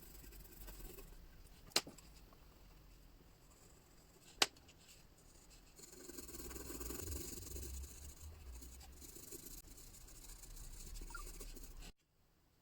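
Faint rubbing and scratching of colouring in on paper, louder in the second half, with two sharp clicks about two and four and a half seconds in. It cuts off suddenly near the end.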